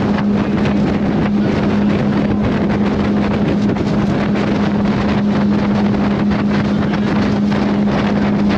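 Motorboat engine running steadily at cruising speed, a constant droning note, with wind buffeting the microphone throughout.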